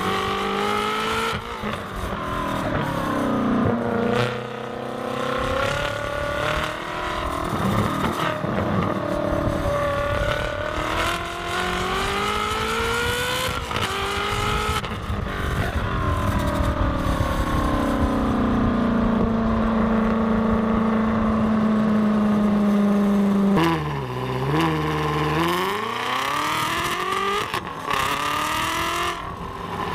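Ferrari F430's 4.3-litre V8 through its new X-pipe exhaust, driven hard at speed: the engine note rises and falls with several quick drops in pitch at gear changes. In the middle it climbs steadily for several seconds on a long pull, then about three-quarters of the way through the pitch dips sharply and climbs again as the car slows and accelerates out.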